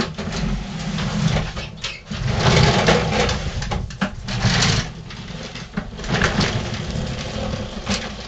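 Push lawn mower being wheeled across a wooden floor: an uneven rolling rumble and rattle from its wheels and deck, with scattered knocks and bumps, louder in surges.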